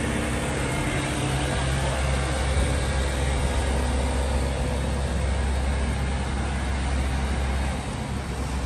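Petrol pump dispensing fuel through the nozzle into a car's tank: a steady low hum with the rush of flowing fuel.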